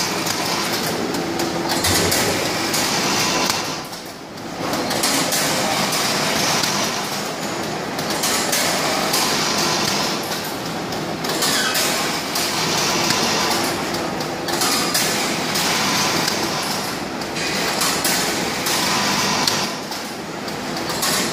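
Noodle packing machine running, a steady mechanical clatter with a hiss that swells and dips in a repeating cycle about every three to four seconds.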